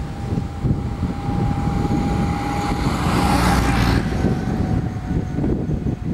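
Convoy of WWII military vehicles driving past: low engine rumble with a steady whine, and a jeep going by close with a rush of tyre and engine noise about three to four seconds in, as an army truck approaches behind it.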